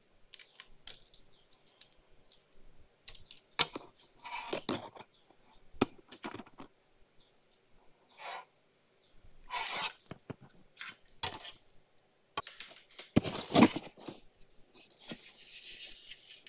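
Hands handling the Mi Router 4C's white plastic switching power adapter and its cable: irregular clicks, taps and rustles of plastic and cable, with a longer rustle near the end as the plastic router body is picked up.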